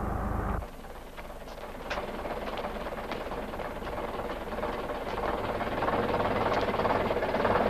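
Old bus engine rumbling for the first second, then cutting off sharply. What follows is a bus station: scattered knocks and clatter over an engine idling, the hum of the idling engine coming back and the whole growing louder toward the end.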